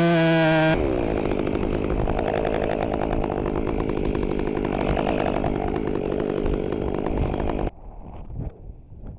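Chainsaw running at high revs. The sound changes abruptly under a second in, then cuts off suddenly near the end, leaving faint wind noise.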